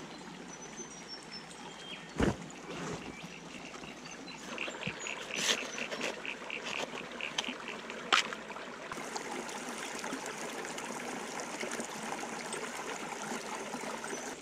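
Shallow creek running over rocks, a steady trickling wash. Over it come a few sharp knocks and scrapes, about 2 s and 8 s in, from a hand tool scratching dirt into a plastic gold pan.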